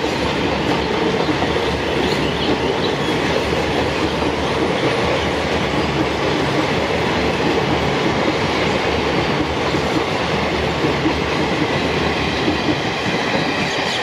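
Passenger train running past at speed: a steady rumble with the wheels clattering over the rail joints.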